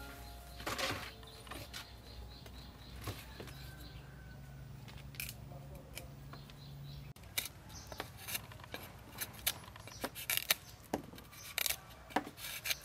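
A large kitchen knife cutting and peeling thick Chinese broccoli stalks: a quick run of sharp, crisp snaps and scrapes through the second half. About a second in, a few light knocks as a plastic basin is set down on the wooden table.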